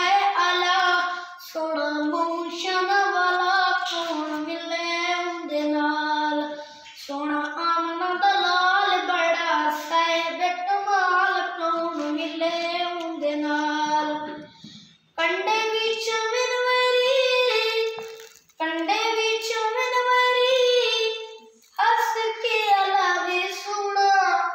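A young boy singing a naat, a devotional Islamic song, unaccompanied in a melodic recitation, with short pauses between phrases.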